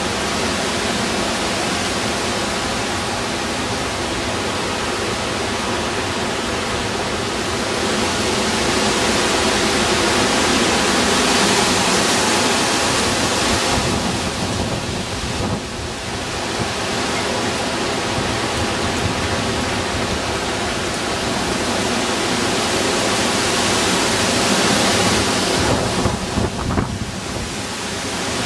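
Hurricane wind and rain: a steady rushing noise that swells in a long gust about ten seconds in, dips, and rises again near the end with a few sharp gusts.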